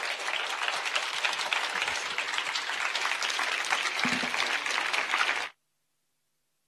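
Audience applauding, a dense steady clapping of many hands that cuts off suddenly about five and a half seconds in.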